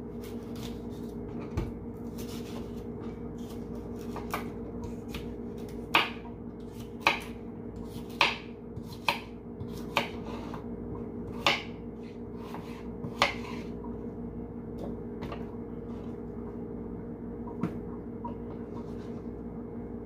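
Kitchen knife cutting a cucumber into chunks on a wooden cutting board: a dozen or so separate sharp knocks of the blade against the board, spaced about a second apart, over a steady low hum.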